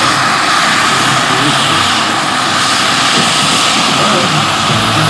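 Jakadofsky Pro XL model gas turbine of a large RC scale Cobra helicopter running with a steady whine as the model sets down, its main rotor still turning.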